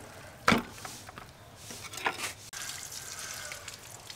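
Wet slaps of a split pig's head being laid down and handled on a slatted wooden table: a sharp one about half a second in and another about two seconds in.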